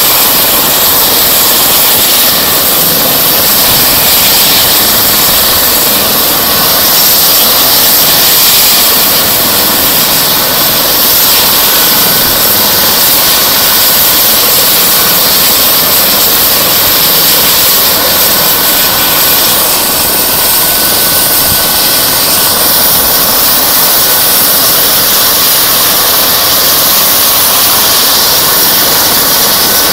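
Eurocopter EC135 P2 helicopter's twin turboshaft engines running on the ground ahead of takeoff: a loud, steady turbine rush and whine.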